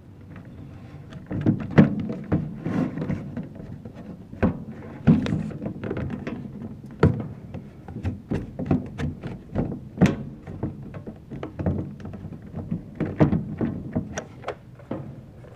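A run of irregular knocks, clicks and thunks, as of small hard objects being handled and set down, sometimes several in a second.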